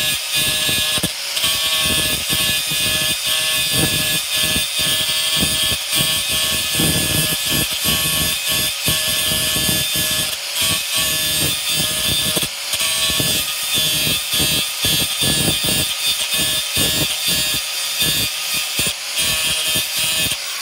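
Angle grinder running against rusted steel bolt heads on a dirt pan's cutting edge, grinding away the corrosion: a steady motor whine under a harsh grinding hiss that chatters unevenly as the disc bites. It is switched off right at the end and begins to wind down.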